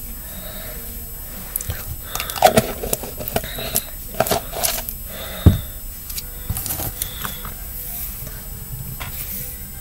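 Hands handling a small box or packet: a run of clicks and crinkles, with one sharp knock about five and a half seconds in.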